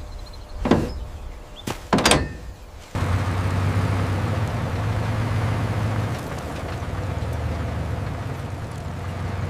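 A few sharp knocks, then about three seconds in a factory machine starts abruptly and runs steadily with a low hum.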